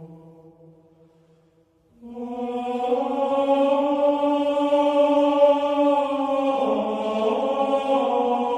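Music of long held, choir-like chords. A chord fades away, and about two seconds in a new one swells in and holds, shifting to another chord near the seven-second mark.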